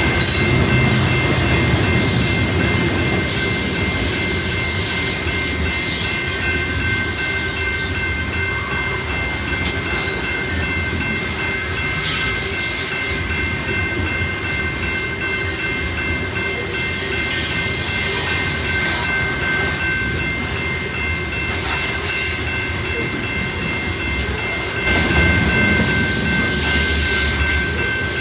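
Freight train cars rolling past, a steady rumble with wheels clacking over the rail joints. A steady high-pitched whine is held over it throughout.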